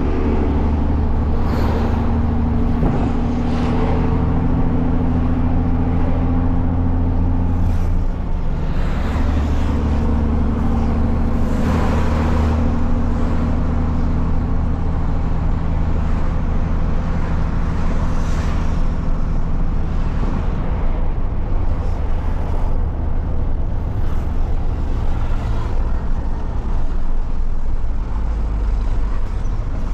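Heavy truck's diesel engine running through a straight-pipe exhaust while driving, heard from the cab. Its note breaks off briefly about eight seconds in, then picks up again.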